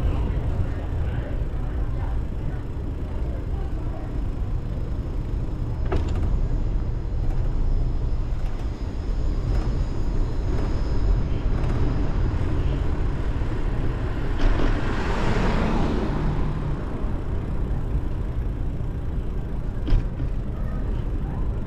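Wind buffeting the microphone of a moving bicycle, a steady low rumble with street noise beneath it. A louder rushing swell rises and falls about two-thirds of the way through, and two sharp clicks sound, one about a quarter of the way in and one near the end.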